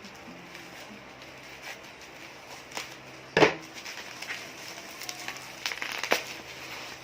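Cosmetic packaging being handled and opened: plastic crinkling and small clicks, with one sharp knock about halfway through and a few more clicks near the end.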